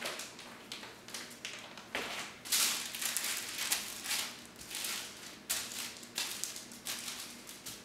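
Hands kneading bread dough on parchment paper: a run of irregular rustles and crinkles as the paper shifts under each push of the dough.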